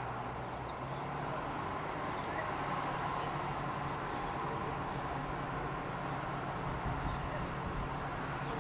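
"Red Hen" diesel railcar approaching at low speed, its diesel engine running with a steady low drone.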